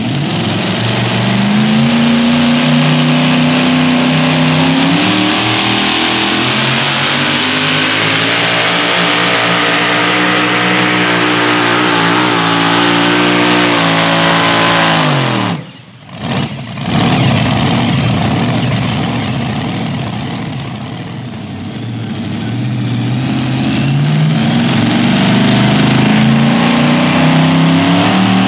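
Engine of a super modified four-wheel-drive pulling truck running flat out under load down the track, its pitch climbing and holding high, then falling away about halfway through as the pull ends. After a brief break, a second truck's blown engine runs and revs up again, its pitch rising toward the end.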